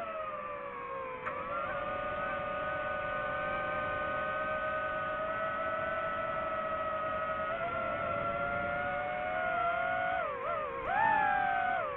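DJI FPV drone's motors and propellers whining. The pitch slides down over the first second, holds nearly steady, then wavers up and down near the end.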